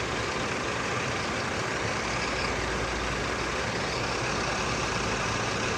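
Steady rumble and hiss of a large tour bus idling close by.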